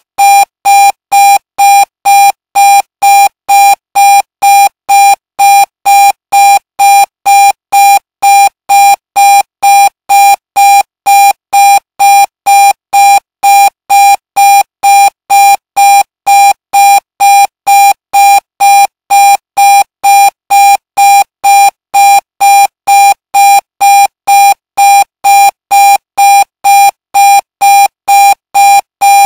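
Electronic alarm clock beeping loudly: one high beep tone repeating evenly about twice a second, without a break.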